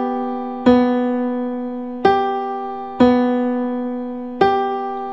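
Ableton Live's Grand Piano instrument playing notes triggered over MIDI whenever the TouchDesigner sphere hits a cube. The same notes are struck four times at uneven intervals, each one ringing out and fading.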